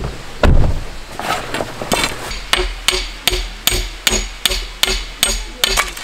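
A low thud about half a second in, then an even run of sharp, slightly ringing strikes, about three a second, from about two seconds in: a metal tent stake being hammered into gravel ground.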